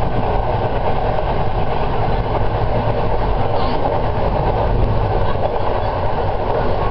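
Train running steadily along the track: a continuous rumble of wheels on rails over a low drone.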